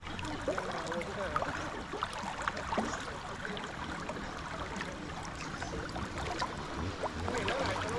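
Forest stream flowing over rocks: a steady rush of water with frequent small splashes and gurgles.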